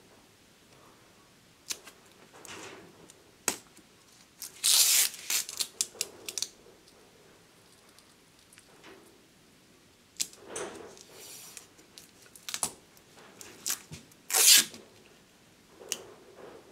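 Masking tape ripping as it is pulled off the roll and torn, in several noisy bursts: a long one about five seconds in and the loudest near the end. A few sharp clicks fall between them.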